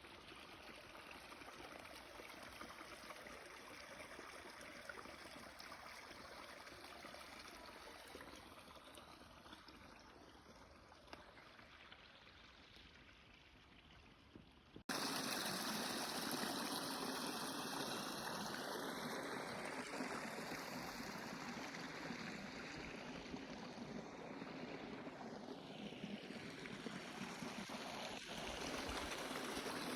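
Steady outdoor rushing noise, like running water or air, with no distinct events. About halfway through it cuts abruptly to a louder, brighter stretch of the same kind of noise.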